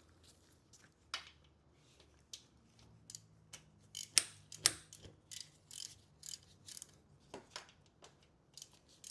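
Socket ratchet clicking in short, irregular runs as a bolt is undone from a Mini Cooper S engine's starter. A few louder metallic clicks come about four to five seconds in.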